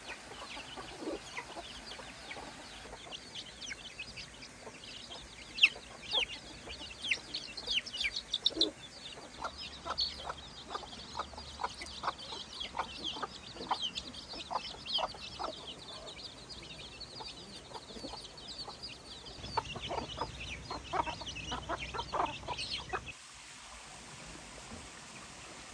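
Free-range hens and chicks: chicks peeping in quick high chirps over a hen's repeated short clucks. The birds stop suddenly near the end, leaving only a faint steady background.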